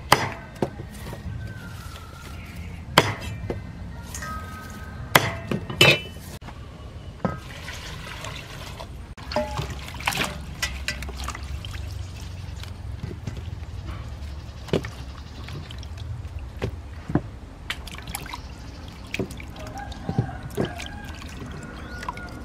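A few sharp knocks of a knife on a wooden chopping board in the first six seconds. After that, water splashing and sloshing as hands wash leafy greens in a basin, with small clicks and drips.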